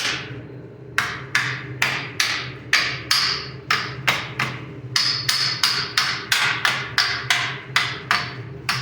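Hammer blows driving the rear wheel hub bearing out of a 2015 Subaru Forester's knuckle: a steady run of sharp, ringing strikes, about two to three a second, starting about a second in. The hub is seized and is being beaten out by hand instead of with a press.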